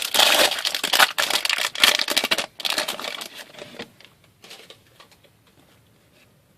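Foil wrapper of a hockey card pack crinkling as it is torn open and handled, for about four seconds, then a few faint clicks as the cards are handled.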